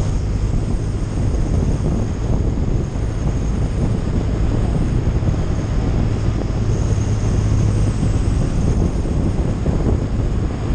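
BMW touring motorcycle riding at steady road speed: wind rushing over the microphone, with a steady low engine hum underneath.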